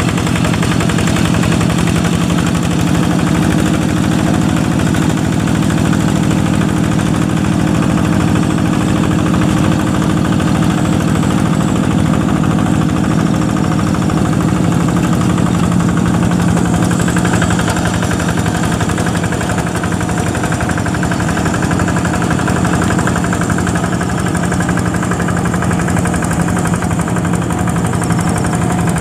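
Yanmar G1000 hand tractor's single-cylinder diesel engine running steadily with a fast, even chugging while it pulls a moldboard plow through soft wet paddy soil.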